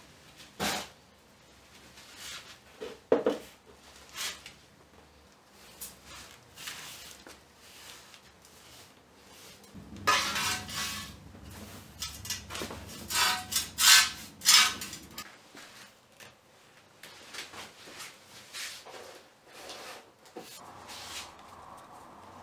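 Kitchenware and utensils being handled: scattered clinks and knocks, with a busier run of clatter about ten to fifteen seconds in.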